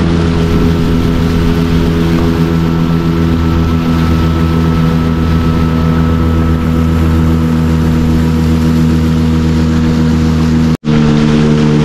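Motorboat engine running steadily at cruising speed over a steady hiss. Near the end the sound drops out for an instant and comes back with a slightly different engine note.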